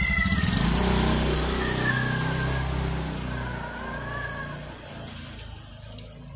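A motorbike passes close by, its engine loudest about a second in and then fading away over the next few seconds. Over it a cat gives several drawn-out, wavering yowls.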